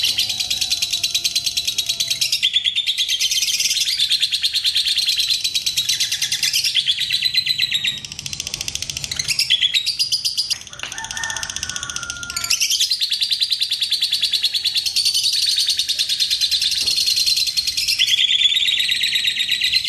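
Fischer's lovebirds chattering in long, fast, high-pitched trills: the continuous 'ngekek' song that keepers prize. The chatter thins out and drops for a few seconds about halfway through, then picks up again at full strength.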